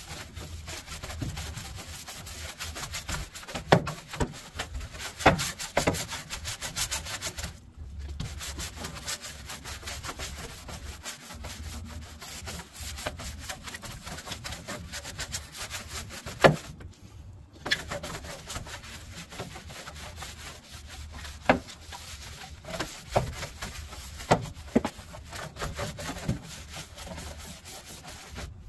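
Hand brush scrubbing the underside of a steel pickup hood: a continuous scratchy rubbing, with a few sharp knocks where the brush or hand strikes the hood, and a couple of short pauses.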